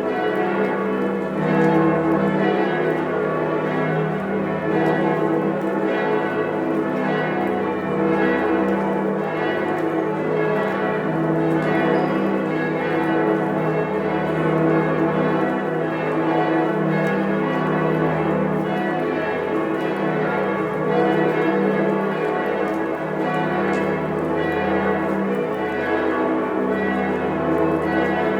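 Many church bells swinging and ringing together in a continuous, overlapping peal, their strokes blending into a dense wash of tones at many pitches with strong low hum tones.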